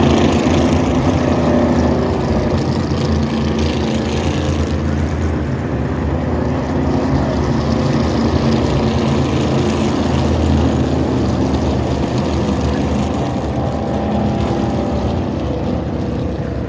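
The field of NASCAR Cup cars' V8 engines running at low, steady speed under caution, a continuous low rumble.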